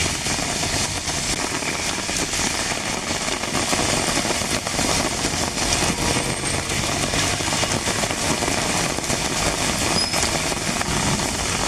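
Heavy rain falling on a city street, a steady hiss, with traffic driving along the flooded road and engines running.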